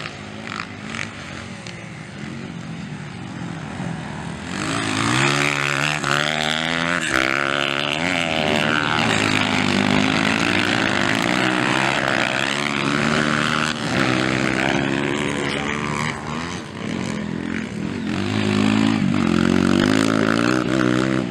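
Honda CRF230 dirt bikes' single-cylinder four-stroke engines racing around a motocross track. From about four seconds in a nearby bike gets much louder, its engine pitch rising and falling again and again as the rider works the throttle and gears.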